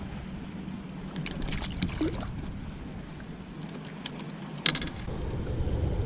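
Fishing tackle being handled, as when a lure is swapped: scattered light metallic clicks and taps over a low steady rumble.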